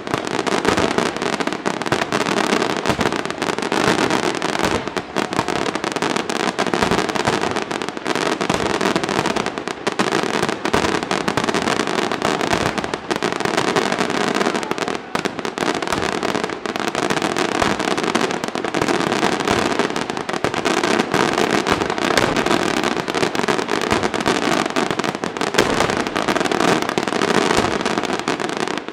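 Aerial fireworks display: a dense, unbroken barrage of shell bursts and crackling stars, with bangs following each other too fast to count.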